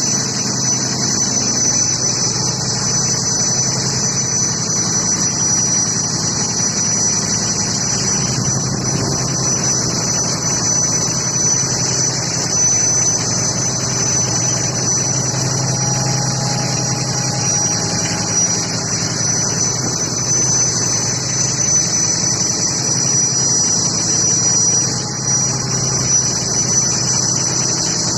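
Fishing boat's engine running steadily, a constant low hum, with a loud, even high hiss and a thin steady high whine over it.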